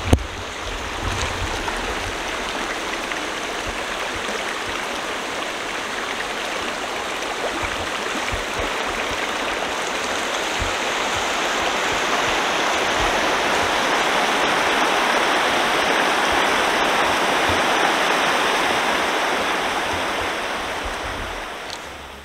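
River water rushing over rocks in a steady, even rush that swells a little past the middle and fades out near the end.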